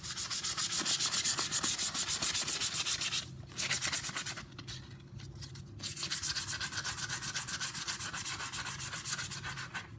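Hand sanding a new wooden axe handle with sandpaper on a block: quick back-and-forth rubbing strokes, several a second, with a break of about a second near the middle.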